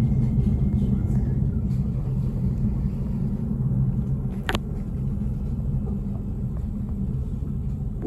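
Tram running on rails, a steady low rumble, with one brief sharp squeak about halfway through.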